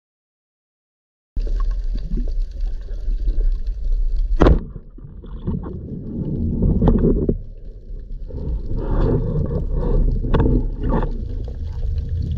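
Silence, then low water rumble and sloshing on an underwater camera just below the surface. About four and a half seconds in comes one sharp crack of a speargun firing, followed by churning water and a few smaller knocks as the speared fish is fought and pulled in.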